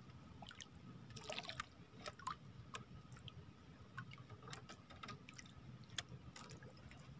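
Faint dripping and trickling water with scattered small ticks, as a wet handline and a freshly caught small fish are handled by hand.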